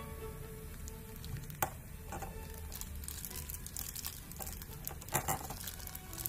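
Thin plastic bag crinkling as it is handled, dense and crackly from about halfway in, with one sharp plastic click about a second and a half in. Soft background music underneath.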